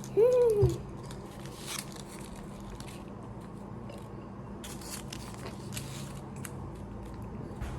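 A short hummed vocal sound at the start, then faint scattered crackles and clicks from the popping-candy packet being handled, over a low steady hum.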